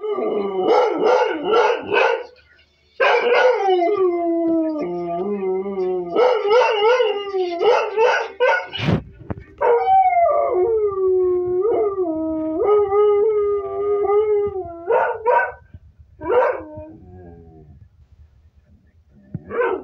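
Kelpie howling, set off by the television: long, wavering howls that slide in pitch, broken up by bursts of short yelps. Near the end it dies down to a few separate short yelps.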